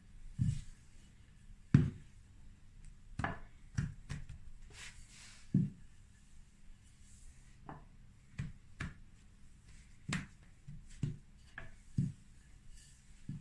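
Wooden rolling pin and hands working a sheet of pastry dough on a stone countertop: irregular soft knocks and thumps, about a dozen, the loudest about two seconds in.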